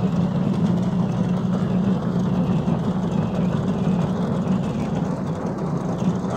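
Steady vehicle drone of engine and tyres on asphalt as a truck tows a riding mower, with no breaks or changes.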